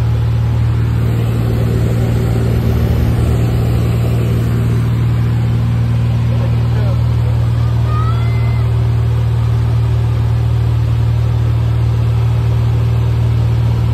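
Cessna 172's piston engine and propeller droning steadily in flight, heard from inside the cabin as a loud, even low hum.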